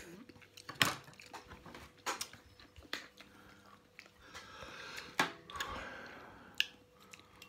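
A person slurping and chewing spicy ramen noodles eaten with chopsticks: wet mouth sounds with a few sharp clicks, and a longer breathy hiss in the middle.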